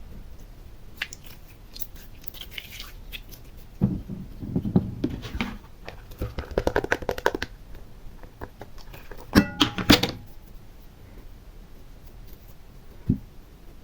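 Slime being handled, with bursts of sticky crackling and squishing. A few louder, sharp clicks come about nine and a half seconds in, and a single tap near the end.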